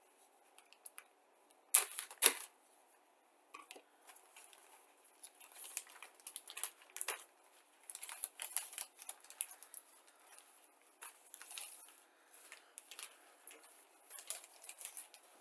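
Sealed thin plastic bag of a model kit being slit open with a snap-off utility knife, with two sharp clicks about two seconds in. Then comes a long stretch of irregular crinkling and rustling of the plastic as the sprue is pulled out of the bag.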